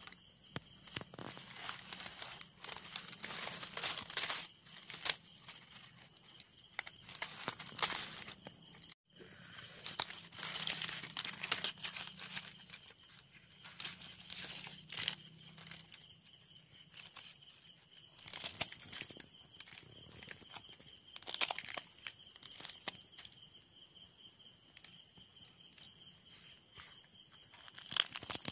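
Charred, brittle sal leaves of a fire-roasted leaf parcel crackling and crinkling in irregular bursts as they are torn and peeled away by hand. Under it, a steady chorus of crickets.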